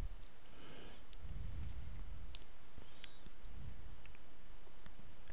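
Computer mouse clicking a few times, short sharp clicks spaced irregularly, as menus are picked in the software.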